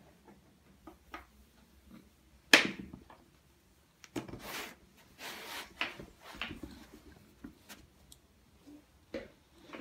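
Scattered knocks and taps of hands and a plastic cutter working modelling dough on a tabletop, with a sharp knock about two and a half seconds in and soft rustling swishes in between.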